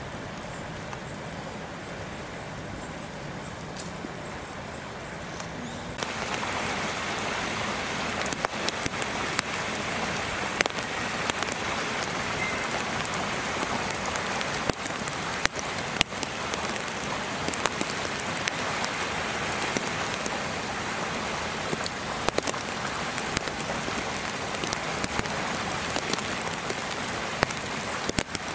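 Heavy wet snow falling on the enclosure, a steady hiss with scattered sharp taps of drops and flakes hitting surfaces. It gets louder about six seconds in.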